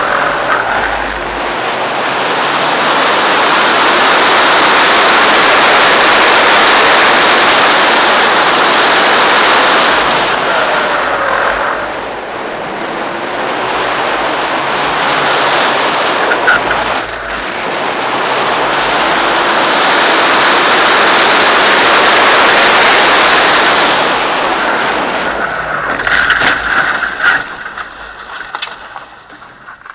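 Mazda Miata being driven hard around a track: loud rushing wind and road noise that swells and eases with speed, with the inline-four engine revving faintly underneath. Near the end a few sharp knocks come as the noise dies away.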